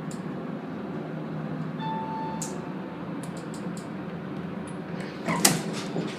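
Elevator cab in motion, a steady low hum inside the car, with a single short beep about two seconds in and a few sharp knocks near the end.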